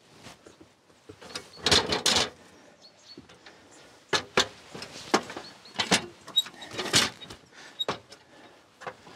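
Stepladder being shifted on stone paving and climbed in boots: a string of irregular sharp knocks and clatters, with a quick cluster about two seconds in and single knocks spread through the rest.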